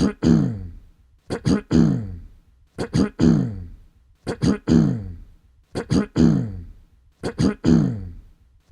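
A person clearing their throat, repeated about every second and a half, six times. Each one is two quick sharp catches followed by a longer voiced rasp that falls in pitch.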